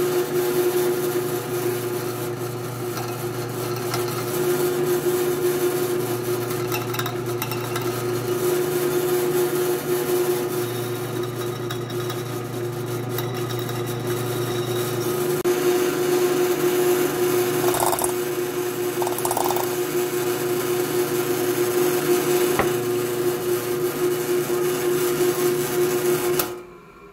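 Bench drill press running, its bit drilling through a broken-off bolt in a thermostat housing: a steady motor hum and whine with a vibration in the drill press, and the drilling rasp over it. It stops near the end.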